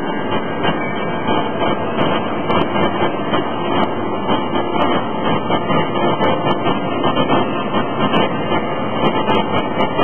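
Hydraulic forging hammers and forge machinery working hot steel, a loud, dense din that pulses about twice a second.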